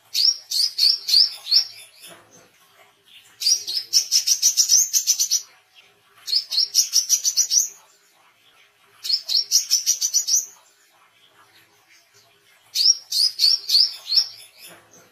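Brown-throated sunbird (wiceh) singing energetically: five bursts of rapid, sharp, high chirps, each burst one to two seconds long, with a second or two of pause between them.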